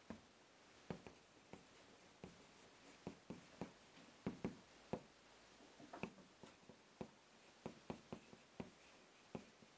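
Chalk writing on a blackboard: a faint, irregular series of light taps and short scratches as characters are written out.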